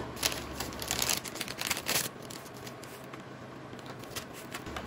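Paper packet of dry onion soup mix rustling and crinkling as it is handled and shaken out over a bowl. The sound is busiest in the first two seconds and softer after that.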